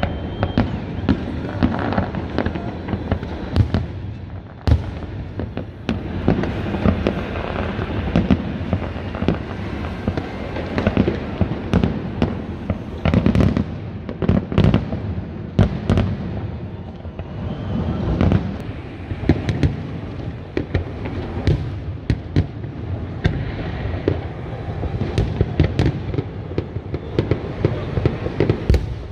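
Aerial fireworks display: a dense, continuous barrage of bangs and crackles, many sharp reports overlapping every second.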